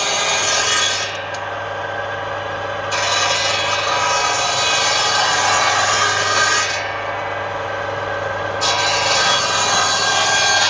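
Circular saw bench cutting a length of wood fed by hand against its large blade, a steady hissing cut over the motor's low hum. Twice, for about two seconds each, the high cutting noise drops away while the blade keeps running.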